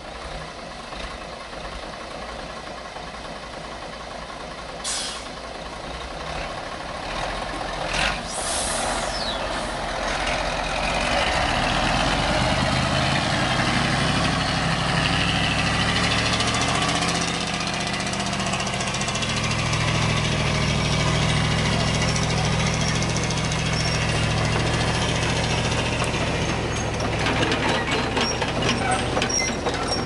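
Diesel engine of a logging truck piled high with logs, working hard on a dirt track. Its low drone builds from about ten seconds in and then holds steady. There are two short air hisses in the first part and a rattling clatter near the end.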